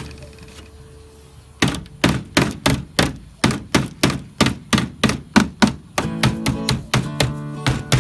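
Background music with a steady beat: a run of evenly spaced sharp strikes, about three a second, begins about one and a half seconds in.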